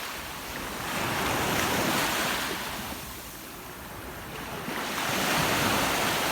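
Sea surf washing in: a rushing noise of breaking waves that swells, fades about halfway through, and swells again.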